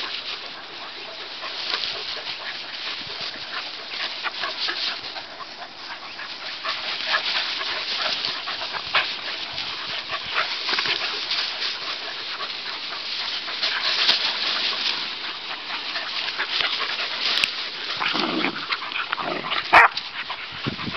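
Airedale terriers playing and chasing through long grass, with grass rustling, scuffling and dog noises throughout. Near the end there is a short pitched dog call, followed by a sharp knock.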